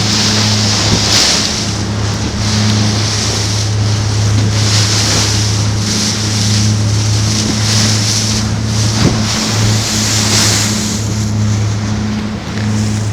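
Motorboat engine running with a steady low hum, with water rushing past the hull and wind gusting on the microphone.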